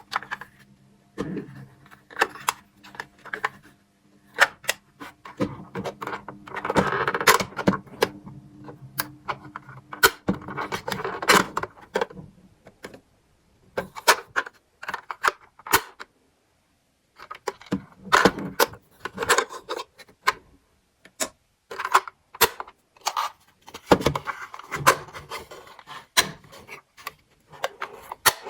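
Small plastic toy pieces and packaging being handled during an unboxing: many sharp clicks and taps as parts are picked up and set down, with a few stretches of rustling.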